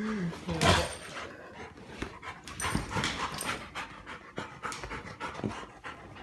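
Yellow Labrador retriever panting in quick, uneven breaths, with a louder huff about a second in.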